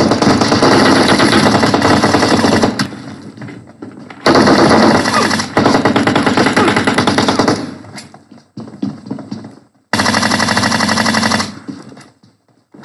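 Video-game automatic gunfire: three long bursts of rapid shots, each cutting off abruptly, with scattered quieter shots in between.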